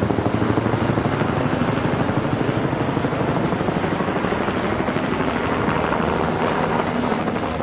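Helicopter rotor beating steadily in a fast, even rhythm.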